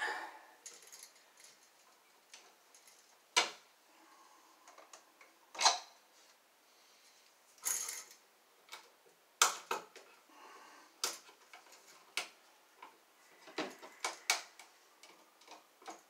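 Screwdriver and copper wire clicking and tapping against the metal terminal screws of a heavy-duty wall outlet as it is wired by hand. The clicks are sharp and irregular, a second or two apart, with a few louder knocks among them.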